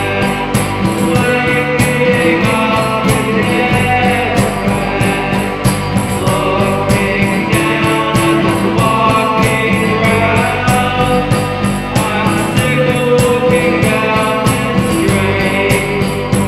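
Rock song played by a three-piece of electric guitar, organ and drum kit, with held organ notes over a steady, quick beat on the drums.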